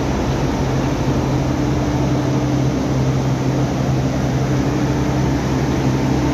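Steady drone of running industrial machinery: a constant low hum over an even wash of noise, with no breaks.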